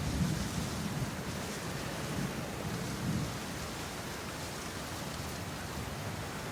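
A low, uneven rumble that swells and fades a few times, with a steady hiss above it.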